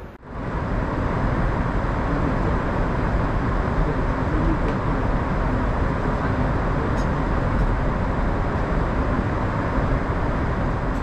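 Steady cabin noise of a Boeing 747-8 at cruise: an even rush of airflow and engine noise heard from inside the cabin, heaviest in the low end.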